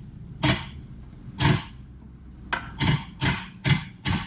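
A series of seven sharp knocks, irregularly spaced and coming faster toward the end: tools striking metal suspension parts as an aftermarket camber control arm is worked into place.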